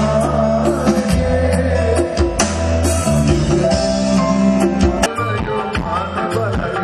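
Live band playing: drums with a heavy, sustained bass line and electric guitars.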